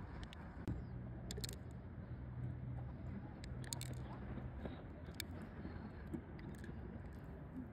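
Soft wet squishing with scattered sharp clicks as fingers dig pearls out of a pearl clam's soft flesh. A low steady hum runs underneath until about halfway through.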